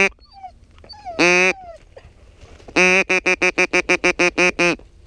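Mallard duck call blown by a hunter: a single loud quack, another about a second later, then a long quack running into a fast string of about ten short quacks, some five a second, to call ducks in.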